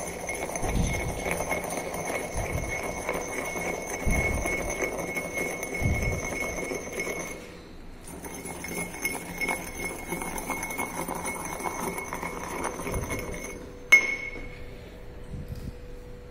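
Pestle grinding and stirring powder in a porcelain mortar: a gritty scraping with dull knocks, a short break about halfway, then one sharp clink near the end as the pestle is set down in the mortar.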